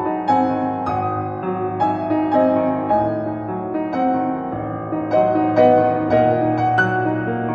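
Piano music: a slow melody with notes struck about once or twice a second over held low chords.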